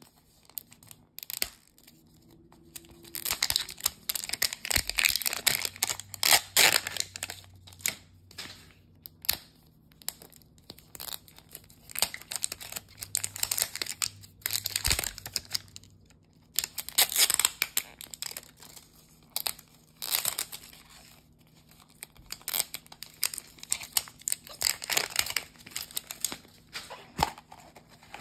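Printed wrapper being peeled and torn off a plastic toy capsule ball, in repeated bursts of ripping and crinkling with short pauses between them.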